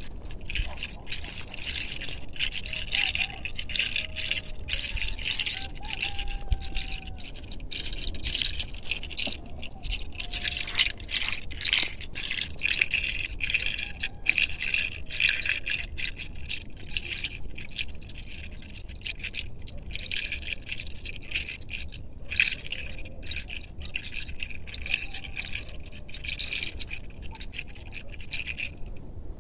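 Scratchy rustling and rubbing of hands working over a person's hair and head during a rose-petal cleansing. It comes in long stretches with a lull about two-thirds through and stops shortly before the end.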